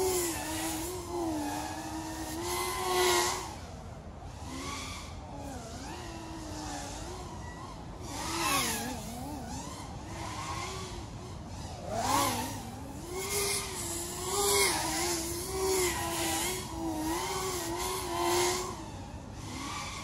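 FPV racing quadcopter's electric motors whining, the pitch wavering up and down with the throttle as it flies the course, and growing louder several times as it passes close. The throttle is capped at 60%.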